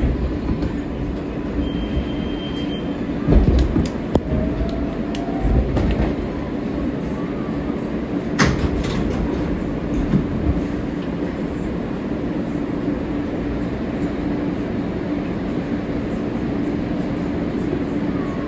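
R143 New York City subway train running along the track: a steady rumble with a constant hum. A few sharp knocks come from the wheels over rail joints, and a short high squeal sounds about two seconds in.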